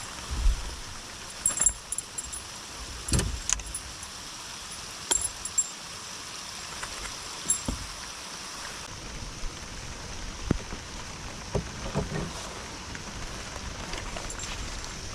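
Steady background hiss with several short, light clicks and knocks scattered through it, typical of fishing gear handled on a boat.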